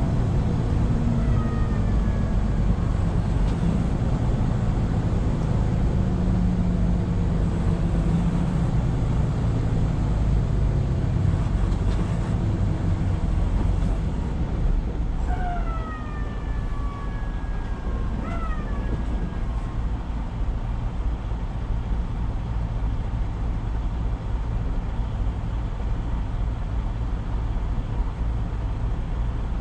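Semi-truck's diesel engine running while driving, heard from the cab with steady road noise. The engine drone eases off about halfway through, and a few short falling whistle-like tones sound, one near the start and two around the middle.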